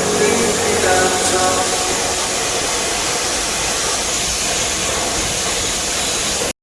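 A steady rushing hiss that cuts off suddenly near the end.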